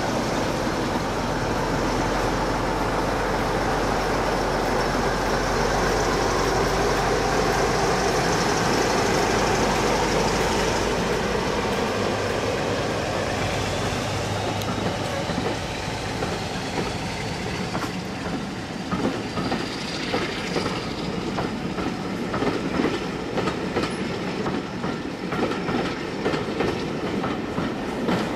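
Heritage diesel locomotive and its train passing: the engine runs loudly at first, then from about 18 s in the coaches' wheels clatter over rail joints in a rapid run of clicks.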